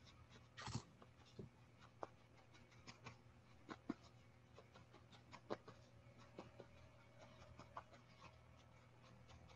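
Faint, irregular pokes of a felting needle stabbing through wool roving into a foam pad, roughly one or two a second, over a low steady hum.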